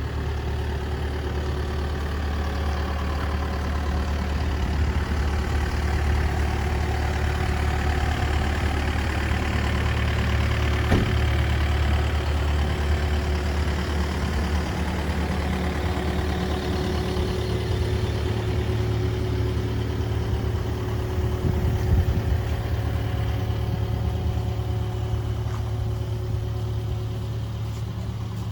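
Kubota KX080 midi excavator's diesel engine running steadily with a deep hum. It gets louder and fuller through the middle stretch, then eases back near the end, with an occasional single knock.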